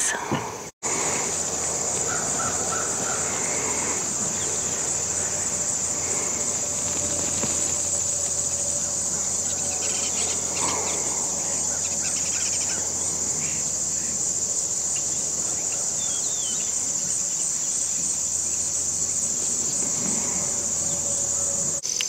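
Steady, high-pitched chorus of insects in the surrounding fields and woods, with a few faint bird calls now and then.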